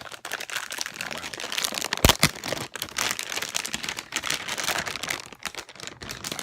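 Graphics card's packaging being unwrapped by hand: continuous crinkling and rustling, with one sharp snap about two seconds in.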